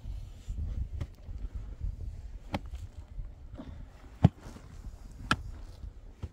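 A pickaxe striking hard, dry, stony earth while a pit is dug by hand. There are about five separate blows, roughly one every second or so, and the loudest comes about four seconds in.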